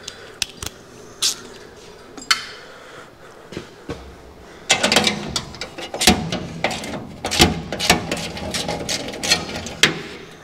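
Hand wrench work on the Power Wagon's fender bolts: a few separate metal clicks, then from about halfway a dense run of irregular clicking and clinking as the bolts are worked loose.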